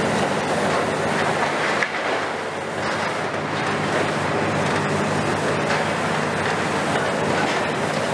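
Long-front demolition excavator (KMC 400 on a Hitachi ZX350LC-6 base) running its diesel engine steadily under hydraulic load while its demolition jaws tear and crumple corrugated sheet-metal cladding, with metal scraping and rattling and a sharp clank about two seconds in.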